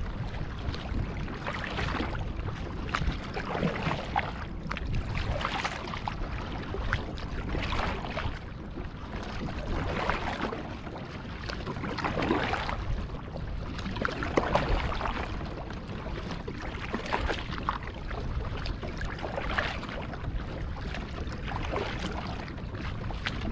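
Double-bladed kayak paddle strokes in the water, a splashy swell about every two seconds, over a steady low rumble.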